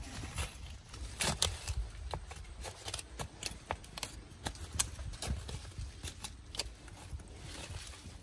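Irregular light knocks and clicks, a few a second, over a low steady rumble.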